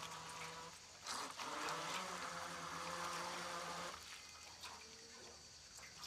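A remote-control fishing boat's small motor buzzing at speed on the water, rising in level about a second in and cutting back about four seconds in.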